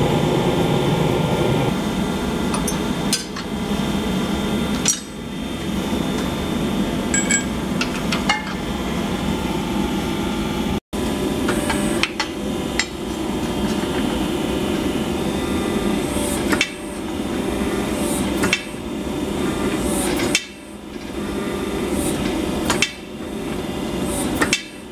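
Hot steel being forged: a steady mechanical roar throughout, broken by sharp metallic clanks every second or two as the tongs and the glowing billet knock against the dies of a homemade forging press.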